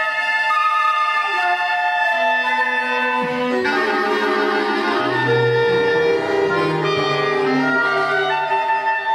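Instrumental background music: a melody of long held wind-instrument notes, with more instruments and lower notes joining in the middle.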